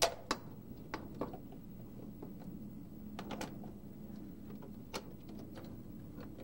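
Plastic clicks and knocks from a car's lower dashboard trim panel being worked loose by hand. The loudest click comes right at the start, a second follows shortly after, and a few lighter ones are scattered through the rest, over a steady low hum.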